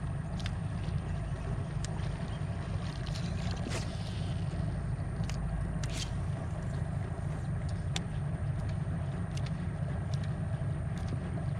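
Boat motor running steadily, a low even drone, with a few sharp clicks now and then.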